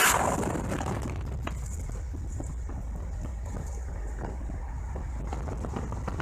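A car driving, a steady low rumble.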